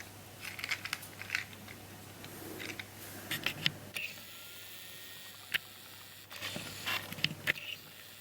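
Scattered small clicks and rustles from handling a plastic tile sliding puzzle and its packaging.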